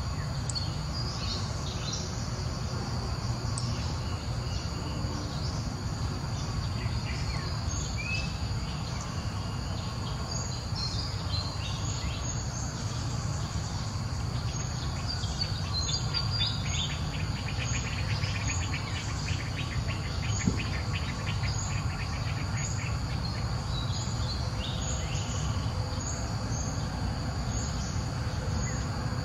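Outdoor insect and bird ambience: a steady insect buzz with a short high chirp repeating about once a second through the second half, a run of rapid ticking near the middle, and a few bird chirps, over a steady low rumble.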